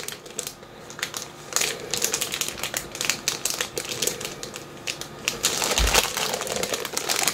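Plastic snack packaging crinkling and crackling as it is handled, in uneven spells that are busiest about one and a half seconds in and again near six seconds, with a low thump about six seconds in.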